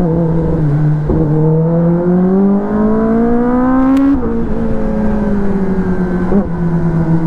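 Kawasaki ZX-10R inline-four engine heard from the rider's seat. Its note rises steadily as the bike accelerates, drops sharply about four seconds in as the throttle is closed, then falls slowly as the bike slows.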